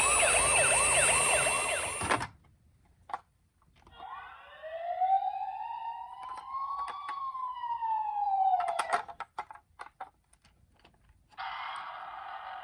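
Toy ambulance's electronic siren sounding one slow wail, rising and then falling back over about five seconds, with scattered clicks before and after. It is preceded by a loud jumble of sound that cuts off about two seconds in, and a steady buzzy electronic tone starts near the end.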